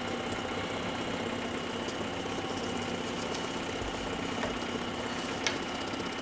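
Scroll saw running steadily, its motor humming and blade reciprocating, with no cutting. A light tap of a wooden piece sounds about five and a half seconds in.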